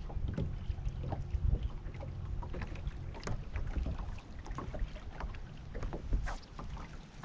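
Water lapping and slapping against a bass boat's hull, with irregular light ticks and a low wind rumble on the microphone.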